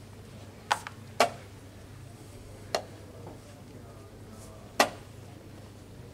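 Four sharp clicks from rapid chess play: wooden chess pieces set down on the board and the chess clock's button pressed. The loudest comes near the end as a hand strikes the clock.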